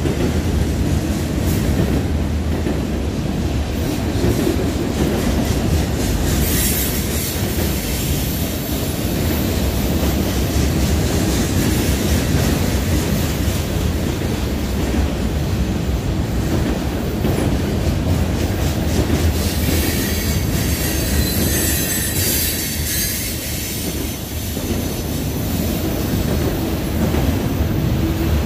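Freight cars rolling past close by, autoracks among them: a steady rumble of steel wheels on rail with clickety-clack over the joints. High-pitched wheel squeal rises about six seconds in and again from about twenty to twenty-three seconds.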